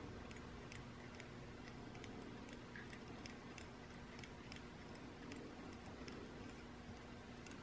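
Faint, quick ticking, about two or three ticks a second, over a low steady hum.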